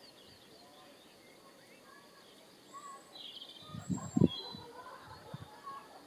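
Scattered short bird chirps and calls. A brief cluster of low thuds comes about four seconds in and is the loudest sound.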